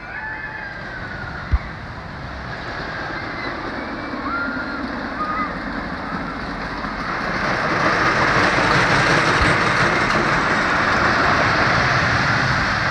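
Zippin Pippin wooden roller coaster train running along its wooden track, a rattling rumble that swells from about halfway and is loudest in the last few seconds as the train passes close.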